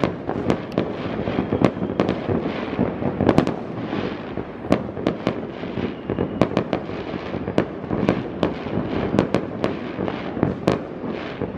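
Many fireworks going off at once: a continuous rumble of overlapping booms with frequent sharp bangs and crackles, several a second and irregular.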